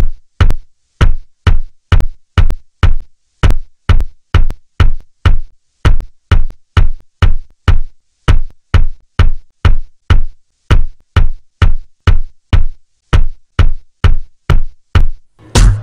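Music track stripped down to a lone kick drum beating steadily, about two beats a second, with nothing else playing over it.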